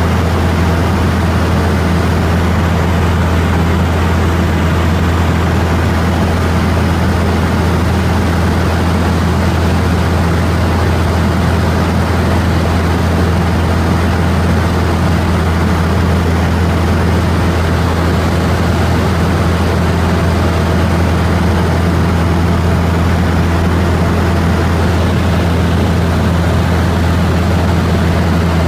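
Steady engine drone inside the cabin of an aircraft in flight, a loud low hum that does not change.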